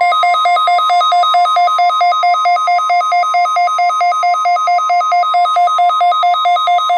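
NOAA weather radio alert alarm: a steady high tone with rapid pulsing beeps over it, about four a second.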